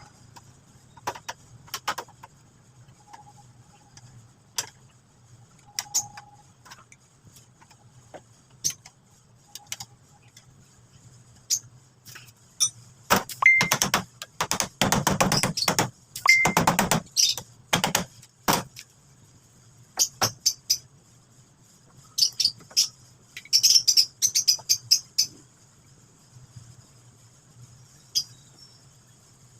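Metal tools and parts clinking and clattering: scattered single clicks and knocks, a busy run of clatter in the middle and a shorter one near the end, over a faint steady hum.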